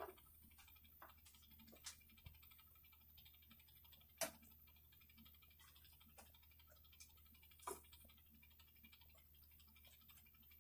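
Near silence: faint room tone with a low steady hum and a few scattered short clicks and knocks, the sharpest about four seconds in.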